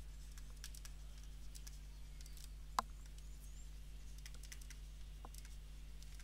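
Faint, scattered clicks and taps of a stylus writing on a tablet, with one sharper click about halfway through, over a steady low electrical hum.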